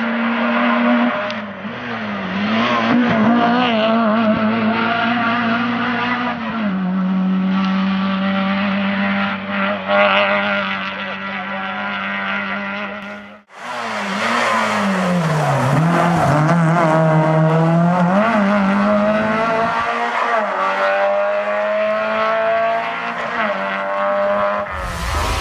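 Rally car engine driven hard on a tarmac stage, its pitch climbing and dropping again and again as the car accelerates, shifts and brakes. There is a brief break about halfway through, after which a second run carries on the same way.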